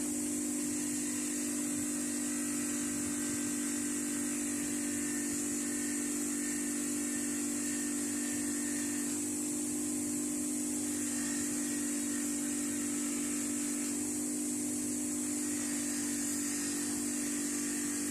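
Electric power tool motor running steadily with a constant hum and a high hiss.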